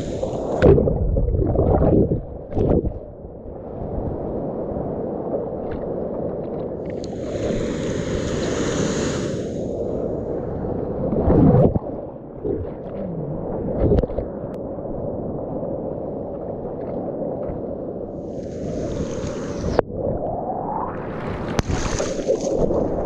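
Ocean water sloshing and splashing close around a mouth-held GoPro as a surfer paddles a longboard by hand, with several sharp slaps of arm strokes into the water. Hissing rushes of foamy water swell up and fade about a third of the way in and twice near the end.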